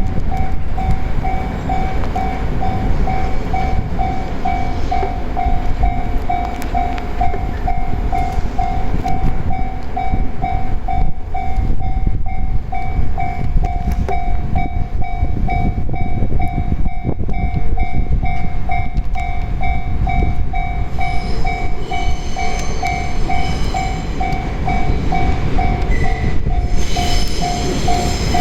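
Japanese level-crossing warning bell ringing steadily at about two strokes a second, over the low rumble of a DE10 diesel-hydraulic locomotive and the dead E195 series electric train it tows through the crossing. A high squeal joins in over the last few seconds.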